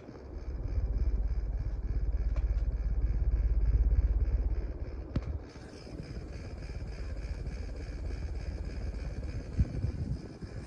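Litex Wyman ceiling fan running with a steady hum and a fine, regular pulsing from the turning blades. A loud low rumble sits over the first half and fades out about five seconds in, with a few faint clicks.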